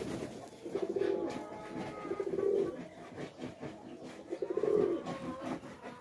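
Domestic pigeons cooing: three low, throbbing coos, the first about a second in, the second about two seconds in and the third past the four-second mark.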